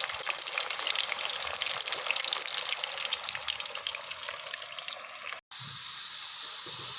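Potato fries deep-frying in hot oil, a steady dense crackle and sizzle, with a brief break about five and a half seconds in.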